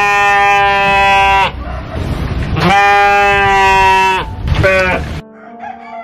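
Sheep bleating: a long drawn-out bleat that ends about a second and a half in, then another long bleat and a short one. Just after five seconds the bleating stops and soft background music with held notes is left.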